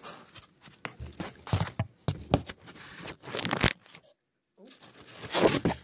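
Packaging being handled and torn: irregular tearing, rustling and scraping, with the sound cutting out for about half a second around four seconds in.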